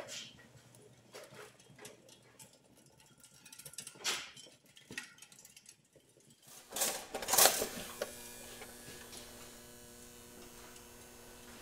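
Scattered faint clicks and ticks, then a loud noisy clatter about seven seconds in. It is followed by a steady electrical hum made of several even pitched tones.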